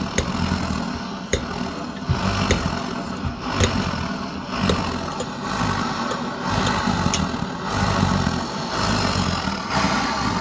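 The hand pump on a Swiss army petrol stove's fuel tank being worked in repeated strokes, about one a second, with a sharp click at each stroke, to build pressure in the tank. A steady rushing noise runs underneath.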